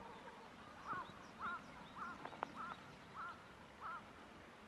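Green pheasant calling: six short, harsh notes repeated about every half second, with a single sharp click among them.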